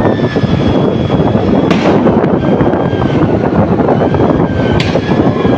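Riding a motorbike at speed: wind rushing over the phone's microphone with the engine's steady whine. Two sharp cracks cut through, about three seconds apart.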